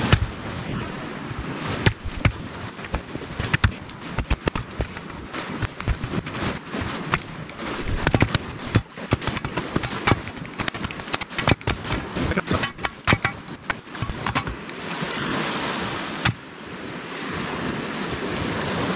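Machete chopping into the husk of a green drinking coconut: many sharp strikes, some in quick runs. The chopping stops about three-quarters of the way through, leaving steady surf.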